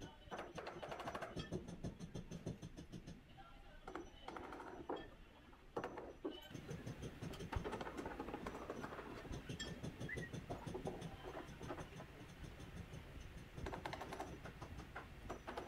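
Hammer driving nails through a wooden board into the one beside it, tacking two planks together: runs of sharp taps on nail and wood.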